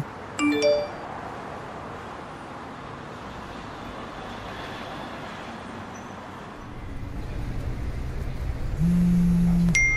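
Synthesized sound effects for an animated subscribe-button outro: a short chime just under a second in, then a steady whooshing hiss. A low rumble builds over the last few seconds, and a bright bell-like ding sounds right at the end.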